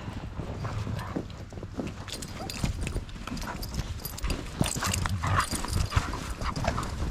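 Footsteps crunching through deep snow, irregular and uneven, more frequent after about two seconds.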